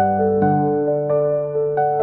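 Background music: a gentle, slow electric-piano piece, with new notes struck about every half second over held chords.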